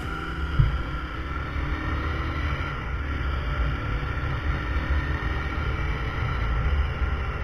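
Honda motorcycle riding along a street, its engine running steadily under a heavy low rumble of wind on the microphone. There is one brief knock about half a second in.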